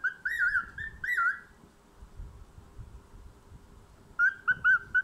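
Cockatiel whistling: a quick run of wavering whistled notes in the first second and a half, a pause, then more short whistles near the end.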